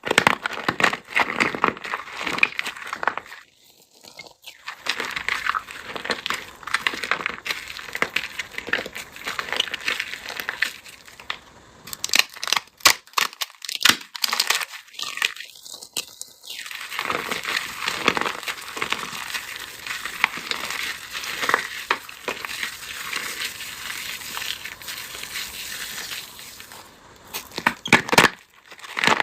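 Brittle dried craft material being crushed and crumbled by hand, giving a dense, irregular run of crunches and crackles. There are two short pauses, about four seconds in and again around the middle.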